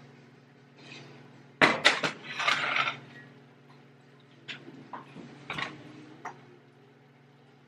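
Cast iron skillet clattering as it is taken out of the oven and set down on the electric stovetop: a loud burst of metal knocks and rattling about a second and a half in, then a few lighter knocks and clicks.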